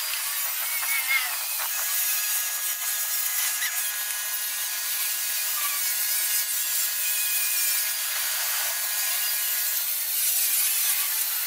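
Handheld electric rotary polisher running steadily, its buffing pad working the aluminum of a truck's bumper and nose grill, with a thin, even whine over a hiss.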